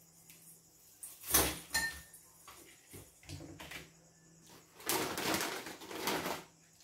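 A plastic bag crinkling and rustling as a hand reaches in and pulls out dried noodles. There is a short bout about a second in and a longer one near the end.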